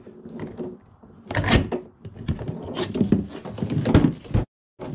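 Hard plastic knocks, scrapes and rattles as a battery air pump is hooked onto a metal picture hanger on the side of a plastic cooler and the cooler is handled. The sound drops out abruptly for a moment near the end.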